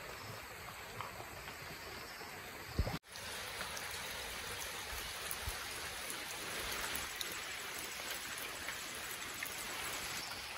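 Steady rain falling on a rooftop tent, an even hiss dotted with small drop hits. The sound cuts out briefly about three seconds in, then resumes slightly louder.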